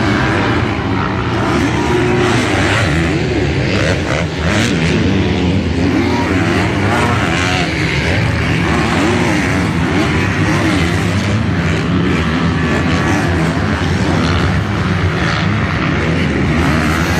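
Several motocross bikes racing, engines revving up and down over and over as they accelerate and ease off around the track.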